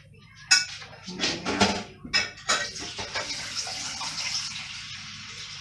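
Several clinks and knocks of a glass bowl and dishes at a kitchen sink, then a kitchen tap runs steadily from about two and a half seconds in, filling the bowl with water.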